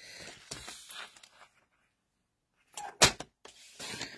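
Patterned paper being slid and lined up on a paper trimmer, with soft handling noises and one sharp click about three seconds in.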